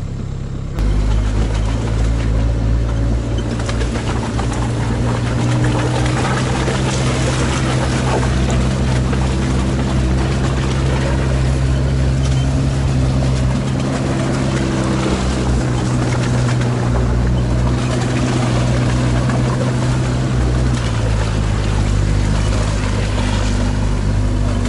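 An all-terrain vehicle's engine runs steadily as it drives, with a deep, even drone. The sound gets suddenly louder about a second in, and the pitch drops a little near the end.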